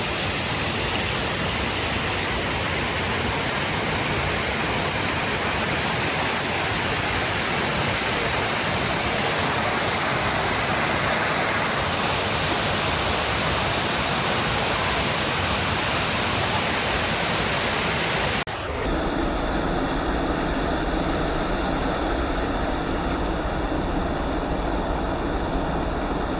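Waterfall rushing steadily, a loud, even hiss of falling water. About three-quarters of the way through it cuts off abruptly, and a duller, steady rumble with a low hum follows.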